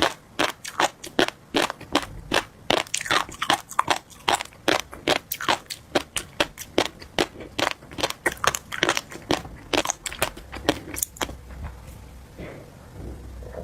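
Close-miked chewing of tobiko (flying fish roe): rapid crunchy pops as the tiny eggs burst between the teeth, several a second, thinning out and fading about eleven seconds in.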